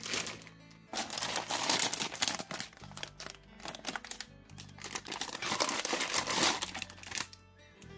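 Plastic model-kit bags crinkling as they are handled, in two spells of about two seconds each, over quiet background music.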